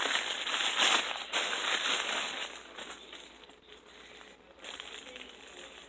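A mailed package crinkling and rustling as it is handled and pulled at to get it open. It is loudest in the first two seconds or so, then dies down to fainter rustles.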